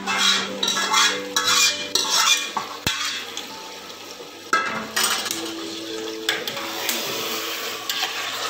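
Flat metal ladle scraping and knocking against aluminium cooking pots while yogurt is stirred into chicken. The clatter is busiest in the first two seconds or so, with one sharp clank just before three seconds in and scattered scrapes after.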